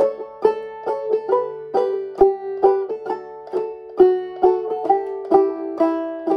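Five-string banjo in open D tuning playing a two-string harmonized scale: pairs of notes on the first and second strings, struck clawhammer style at a steady, moderate pace of about two a second, each ringing briefly before the next.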